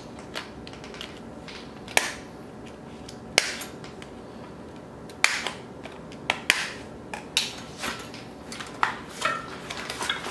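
Scissors snipping through plastic zip ties: sharp single snaps a second or two apart, then quicker, smaller clicks and rustling as the cut ties and foam packing blocks are pulled off the bike frame.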